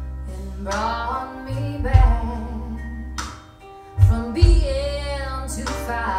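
A song with a female singer and guitar over deep bass hits every couple of seconds, played back through hi-fi loudspeakers and an active subwoofer.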